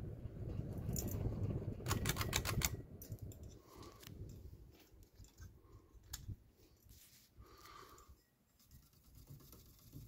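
Clicks and a short clattering rattle as the glass light shades on a running 1998 Harbor Breeze Carolina (SMC) ceiling fan's light kit are handled, over a low rumble that fades out about three seconds in, followed by scattered lighter clicks.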